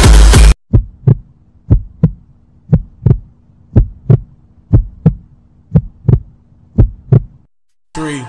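Loud dance music cuts off abruptly, giving way to a heartbeat sound effect in the dance mix: seven double thumps, lub-dub, about once a second over a faint low hum. It stops briefly before a rap track kicks in near the end.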